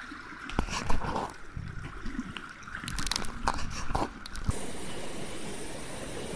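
Fast-flowing river water rushing, with a sudden splash about a second in as a weighted cast net lands on the water, followed by more splashes and sharp knocks around three to four seconds in.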